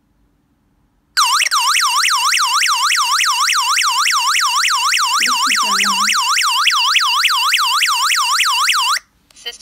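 Wireless alarm control panel's built-in siren wailing in a rapid up-and-down sweep, about four sweeps a second, starting about a second in and cutting off suddenly near the end. It is a leakage alarm set off by the 433 MHz water leak sensor.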